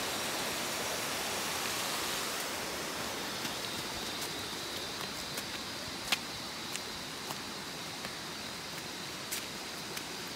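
Small stream of rushing water, a steady hiss that eases a little after the first couple of seconds. A few sharp clicks are heard over it, the loudest about six seconds in.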